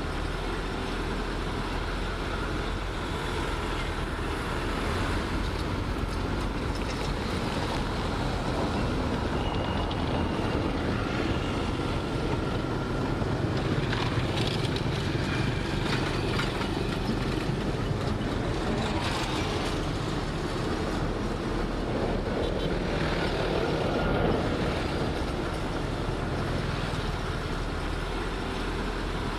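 Heavy diesel earthmoving machinery, a bulldozer or dump truck, running steadily at work. The level swells slightly now and then.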